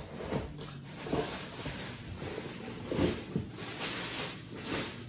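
Irregular rustling, scraping and light knocks of packaging and plastic being handled, with a few louder strokes.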